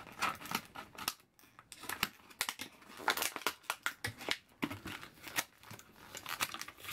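Scissors snipping at a cardboard toy box, mixed with the rustle and crinkle of cardboard and plastic packaging as the toy is worked out. The snips and rustles come as a run of short, sharp clicks, with a brief pause a little after one second.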